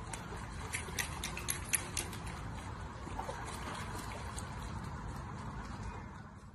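Pool water splashing and dribbling as a golden retriever paws at floating toys from the pool edge, with a cluster of small sharp splashes between about one and two seconds in, over a steady background hiss.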